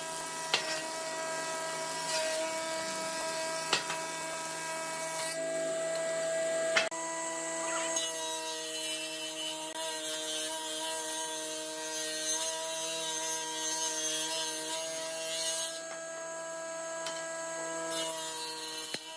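Electric power tool running with a steady motor whine as it works wood, with a few sharp knocks in the first half.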